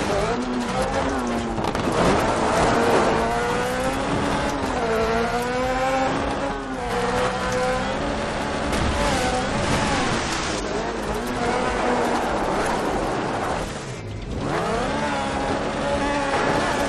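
Off-road buggy engine revving up and down repeatedly as it is driven, with a short drop off the throttle about fourteen seconds in before it climbs again.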